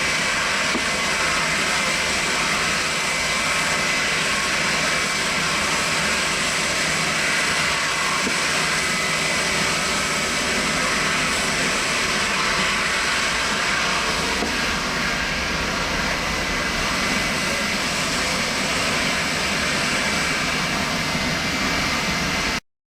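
Boeing 767-300ER's twin jet engines running at takeoff power: a loud, steady roar with a whine around it. It cuts off suddenly near the end.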